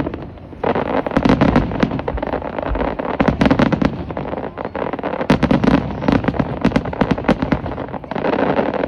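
Fireworks going off in a display, a dense run of rapid crackling pops over repeated low bursts, starting up again about half a second in.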